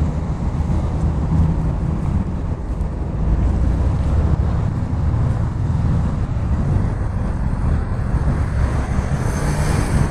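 Steady low outdoor rumble with wind buffeting the phone microphone, and a little more hiss near the end.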